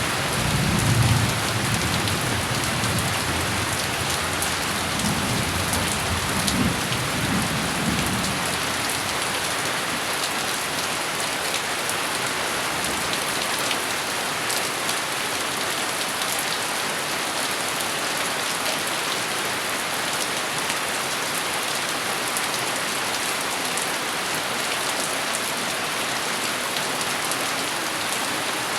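Steady heavy rain falling and pattering on surfaces, with a low rumble of thunder in the first several seconds that dies away, leaving only the rain.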